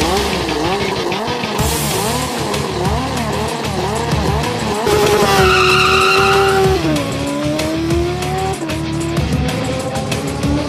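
Formula-style race car's four-cylinder engine being driven hard through a coned course. Its revs rise and fall again and again, then hold a high steady note. About seven seconds in the note drops sharply and climbs again, as at a gear change.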